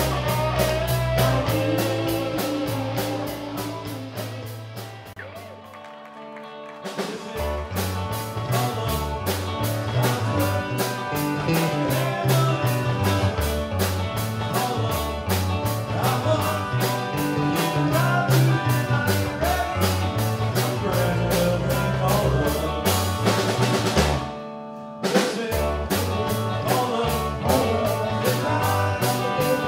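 Live rock band playing with electric guitars, bass, drums and keyboard, and a male lead vocal. The music fades out about five seconds in, and after a short gap the band comes in again. Near the end the band stops for about a second, then comes straight back in.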